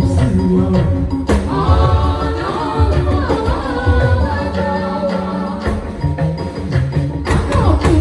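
A live band playing through a PA system during a sound check: a heavy bass line, drum hits and singing.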